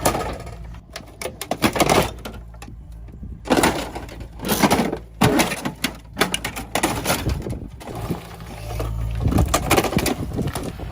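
An excavator's diesel engine runs steadily while its bucket tears at a pickup truck's body. Repeated bursts of crunching, scraping and breaking come in several clusters a second or two apart.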